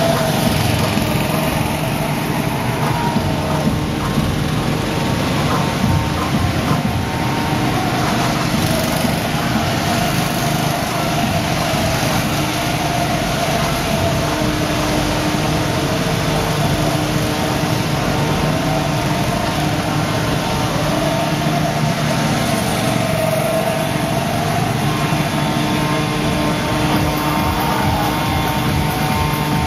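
Small go-kart engines running around the track, their pitch rising and falling as the karts speed up and slow down.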